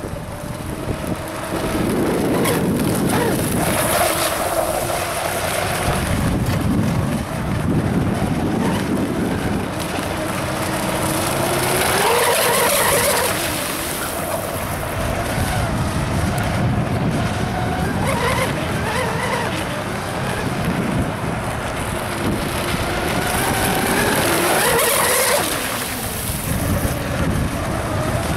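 Fast radio-controlled speedboat running laps, its motor's pitch rising and falling as it speeds back and forth across the water. It grows louder on several close passes, with wind buffeting the microphone.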